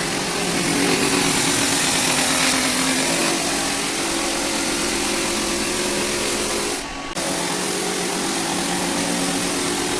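Rented drum floor sander running steadily, sanding hardwood floor. The sound dips briefly about seven seconds in, then carries on.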